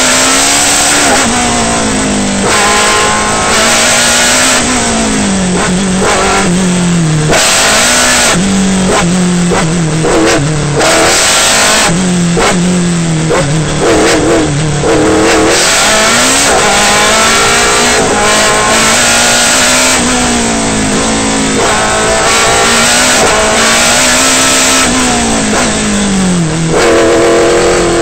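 Osella PA9 sports-prototype race car engine heard from the open cockpit, revving hard and rising in pitch, then dropping at each gear change and under braking, over and over as it accelerates between slalom sections.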